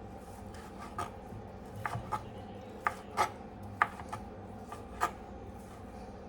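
Knife chopping baked chicken breast on a cutting board by hand: sharp, irregularly spaced strikes, about seven of them, some in quick pairs.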